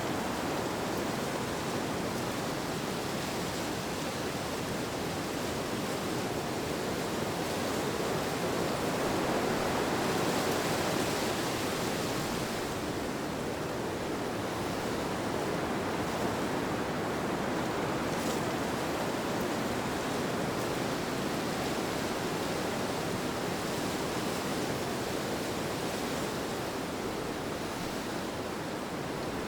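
Ambient wind sound: a steady, even noise that swells gently about a third of the way in and then settles.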